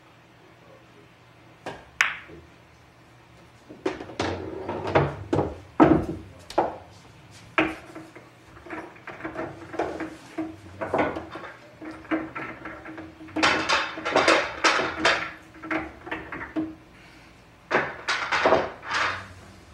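Pool balls clacking and knocking on a pool table, with a long string of sharp strikes and rattling clatters, thickest in two runs about two-thirds of the way in and near the end.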